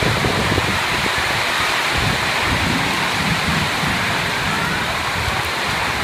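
Heavy rainstorm with strong wind: rain falling hard on a corrugated metal roof as a steady loud rush, with a gusting low rumble of wind.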